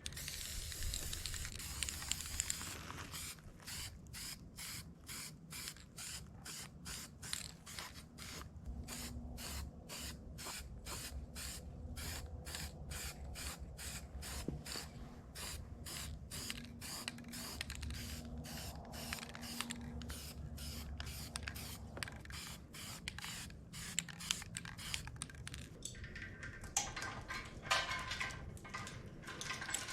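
Paint being sprayed onto a part: a continuous hiss for the first few seconds, then a pulsing hiss about three times a second.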